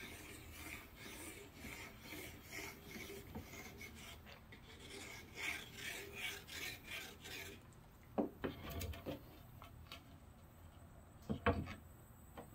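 Faint, repeated scratchy rubbing as the nozzle of a super glue bottle is dragged over blue painter's tape, laying lines of glue on the back of a micarta sheet. After about eight seconds this gives way to a few knocks as the sheet is set down on the taped CNC bed, with a second, louder cluster of knocks near the end.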